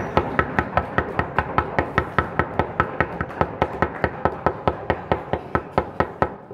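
Classroom audience knocking on wooden desks in applause, a fast, even run of sharp knocks about six a second that stops abruptly near the end.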